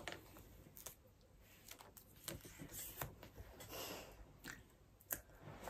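Faint, scattered light ticks and rustles of paper craft pieces being handled, close to near silence.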